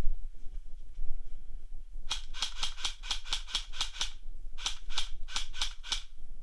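Airsoft gun firing two quick strings of shots, about eleven in the first and seven in the second, at roughly five or six shots a second with a short pause between.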